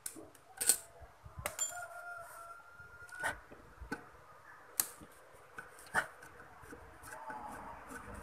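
Scattered clicks and knocks of a screwdriver and metal parts while the motor housing of an electric stand fan is unscrewed and taken apart. A rooster crows faintly in the background about two seconds in, one drawn-out call.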